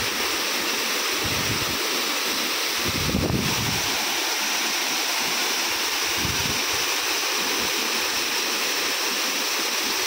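A 225-foot waterfall's falling water: a steady, even rush of noise, with a brief louder swell about three seconds in.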